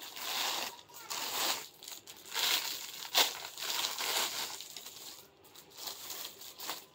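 Clear plastic garment packaging crinkling and rustling in uneven spurts as packed children's suits are handled and pulled from their bags, with the sharpest crackle about three seconds in.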